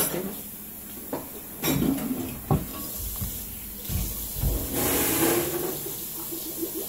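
A tap running water into a sink, with a hiss that swells to its loudest about five seconds in. Several sharp clinks and knocks of dishware come in between, as dishes are being washed.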